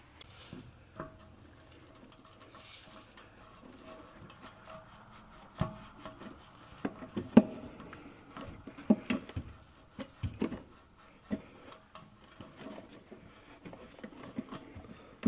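Hand tools working on exhaust hanger bolts under a vehicle: scattered clicks and metal knocks from a ratchet and socket, with several sharper knocks in the second half.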